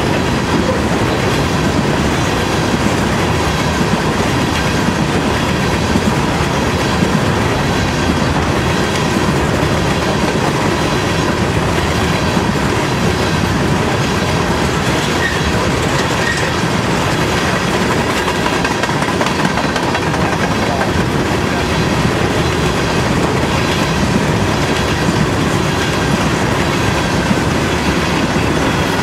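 Coal hopper cars of a long freight train rolling past at close range: a steady rumble and clatter of steel wheels on the rails, with a faint high steady whine.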